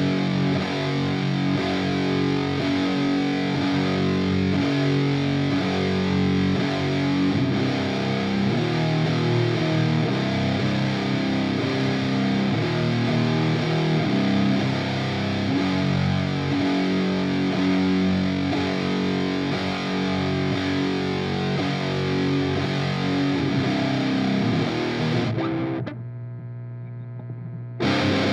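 Electric guitar played through an Eno BMF fuzz pedal, a Big Muff-style fuzz, recorded direct with a cabinet impulse response: heavily distorted, chugging metal riffs. Near the end the riffing stops and a quieter, darker held note rings for a couple of seconds before the playing comes back in.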